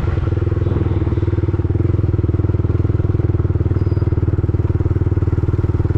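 Yamaha MT-15's 155 cc single-cylinder engine running steadily in fourth gear at low road speed. Its exhaust pulses form an even thrum that holds one pitch, with no revving.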